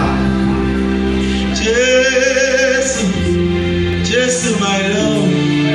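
Male gospel singer singing a drawn-out, wavering worship line into a handheld microphone over sustained backing chords that change twice.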